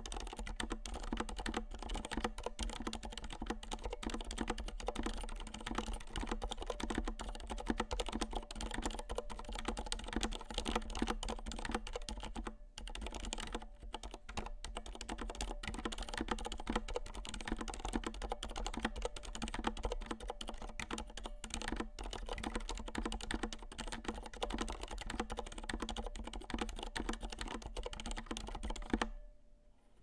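Steady, fast typing on a Durgod Fusion mechanical keyboard fitted with Cherry Silent Red linear switches, PBT doubleshot keycaps and an aluminium plate. The typing pauses briefly about halfway through and stops about a second before the end.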